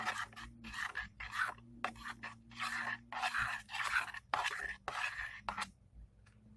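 A spoon stirring and scraping through glue-based slime in a bowl while borax activator is worked in, in quick, uneven strokes that stop shortly before the end.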